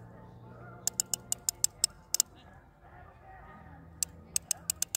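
Fishing reel on a bottom rod clicking as it is handled, in two quick runs of sharp clicks about two seconds apart, over a faint low hum.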